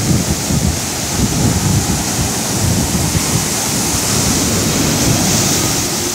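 Surf breaking and washing up a sandy beach, a steady hissing wash, with wind rumbling on the microphone.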